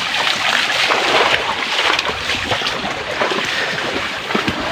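Water splashing and sloshing as people and horses wade through a shallow river.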